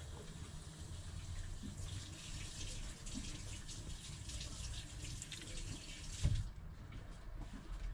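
Water running from a tap, a steady splashing hiss that stops suddenly about six and a half seconds in; a short low thump comes just before it stops.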